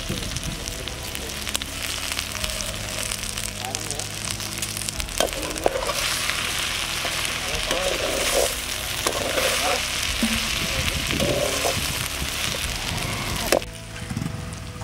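Sliced okra sizzling as it stir-fries in a kadai, with a metal skimmer scraping and clinking against the pan in the middle stretch. The sizzle cuts off suddenly near the end.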